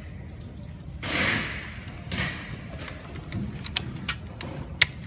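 Handling noise from small plastic robot-vacuum parts being fitted by hand: a few rustling brushes, then several small sharp clicks, the loudest near the end.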